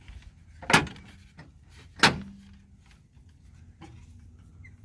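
Two sharp snaps about a second and a quarter apart as a truck panel is pressed back into place, its clips snapping in.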